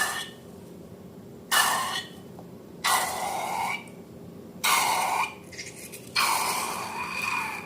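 Five scraping strokes, each with a faint squeal in it; the last and longest begins about six seconds in.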